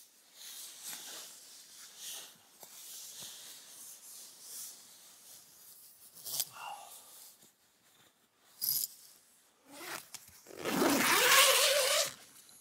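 Tent fabric and sleeping gear rustling as someone shifts and moves inside a tent. Near the end a loud, drawn-out cry rises and wavers in pitch for about a second and a half.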